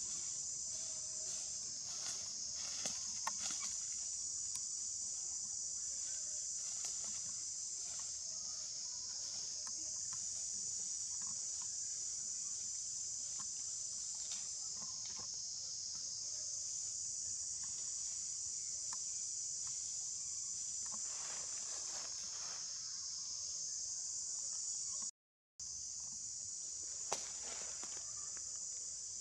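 Steady high-pitched insect chorus, continuous shrill trilling, with a few faint clicks and rustles scattered through it. It drops out briefly about 25 seconds in.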